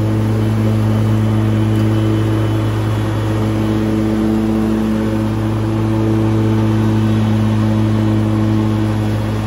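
Toro Z Master Professional 6000 zero-turn mower running steadily with its Turbo Force deck's blades engaged, cutting through tall grass and weeds: a loud, even engine and blade hum.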